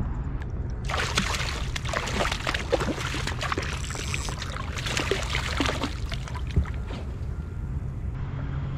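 Water churning and splashing along the side of a moving kayak, a crackling wash that starts about a second in and stops just past eight seconds.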